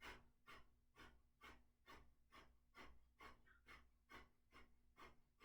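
Kapalbhati breathing: a steady run of faint, short, forceful exhalations through the nose, about two a second, each followed by a passive inhale.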